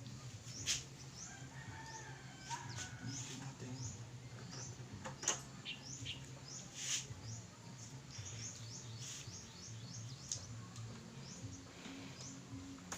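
Small birds chirping over and over in short, high notes, over a low steady hum, with a few faint clicks.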